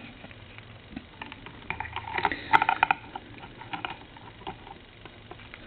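Light, irregular clicks and crackles of hand soldering on a telephone circuit board: a soldering iron and solder tinning the lead of the ringer capacitor. The clicks cluster about two to three seconds in.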